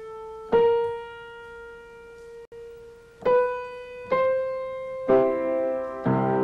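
Grand piano played one note at a time, each note struck and left to ring, climbing in small steps to demonstrate steps of the scale. A fuller chord with low bass notes is struck near the end.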